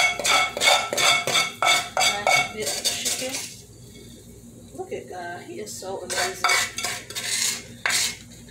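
A spatula scraping and knocking against the inside of an aluminium pot in quick repeated strokes, scraping out the last of the cooked chicken. The strokes run for about three and a half seconds, pause briefly, then start again about five seconds in.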